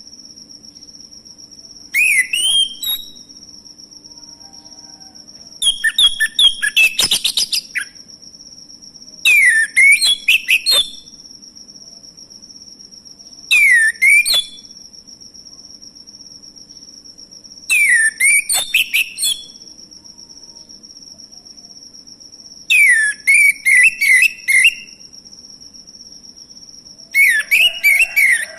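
Male orange-headed thrush singing: seven loud phrases of rapid whistled, gliding notes, one every four seconds or so. A steady high-pitched tone runs underneath.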